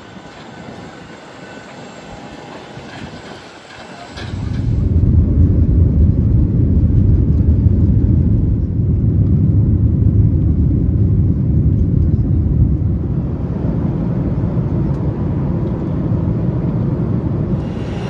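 Airliner cabin noise: a quieter mixed background for the first few seconds, then, about four seconds in, a sudden, loud, steady low rumble, as of the aircraft's takeoff roll.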